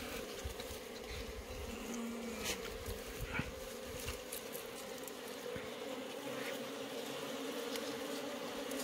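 Steady buzzing of wild honeybees around their comb as it is pulled by hand out of a rock crevice, with a few faint clicks as the comb is handled.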